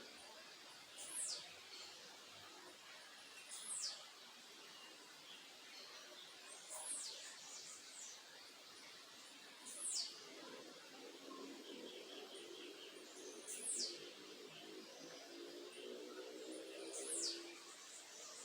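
A bird repeating a short, high call that sweeps sharply down in pitch, six times at roughly three-second intervals, over a steady background hiss. A faint low pitched sound joins in the second half.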